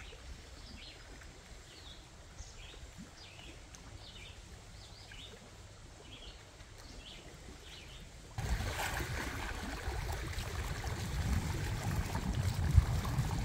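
Small birds chirping again and again over a quiet background. About eight seconds in, this gives way abruptly to louder wind rumbling on the microphone and choppy lake water around the canoe, with a single knock near the end.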